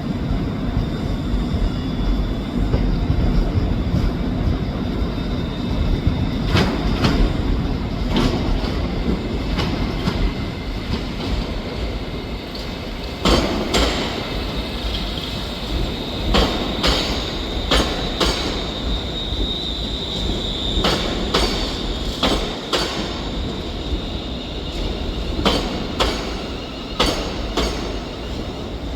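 ScotRail Class 380 electric multiple unit rolling into the platform, its wheels clicking over rail joints and points, with a high wheel squeal in the middle.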